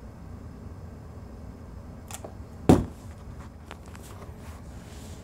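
A faint click, then a single sharp knock about two and a half seconds in, as the controls of the meter are handled, over a steady low hum of room tone.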